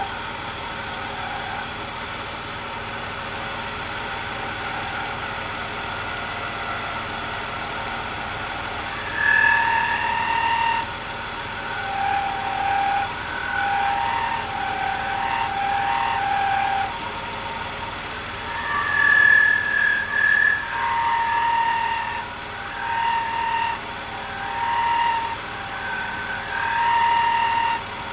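BMW E39 running steadily with a high whirring whine that starts about a third of the way in and then comes and goes in short stretches, shifting between a few pitches. This is the car's unexplained whirring noise.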